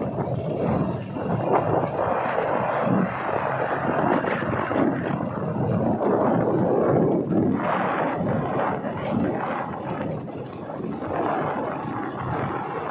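Wind rushing over the microphone of a moving vehicle, with the vehicle's running and road noise underneath: a steady, loud rumble that eases a little about ten seconds in.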